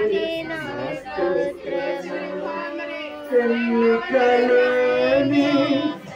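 A group of women singing a devotional song together in unison, with long held notes; the singing gets louder about three seconds in.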